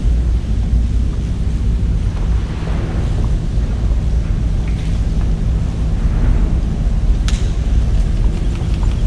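Boat engine running steadily with a low rumble, and one sharp click about seven seconds in.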